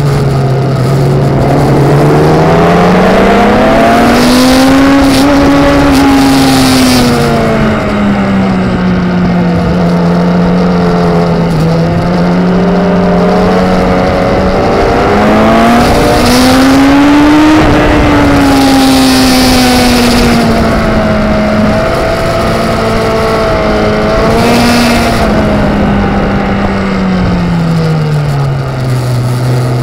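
Onboard sound of a track-ridden motorcycle's engine, climbing in pitch under acceleration and dropping back as it slows, several times over. Wind rushes over the microphone in short gusts.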